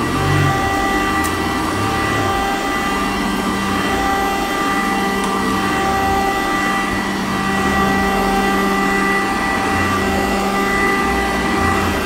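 Sanitaire commercial upright vacuum cleaner running steadily on carpet, its motor giving a constant whine while the head is pushed back and forth.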